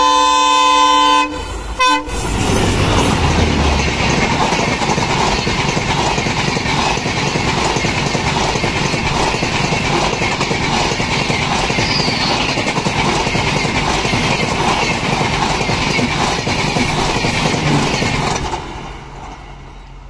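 Indian Railways express train: the locomotive's horn sounds one long blast and a short second toot, then the locomotive and coaches pass at full speed with a loud, steady roar of wheels on rail that drops away sharply near the end as the last coach goes by.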